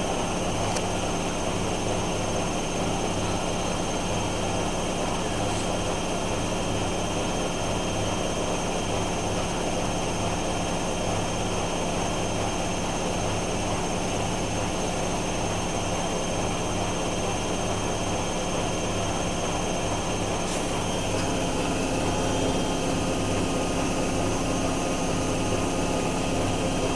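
Miele washing machine holding its first interim spin at 1000 RPM with a full load of cottons: a steady high-speed spin hum with an even low throb. A new steady tone comes in about three quarters of the way through.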